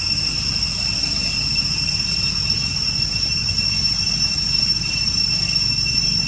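Steady high-pitched drone of cicadas, one unchanging whine with overtones, over a low rumble.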